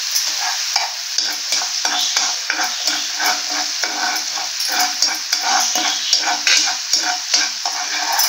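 Sugar-and-water syrup bubbling and sizzling in a nonstick frying pan, cooking down toward caramel, while a metal spoon stirs it with quick repeated scraping strokes across the pan.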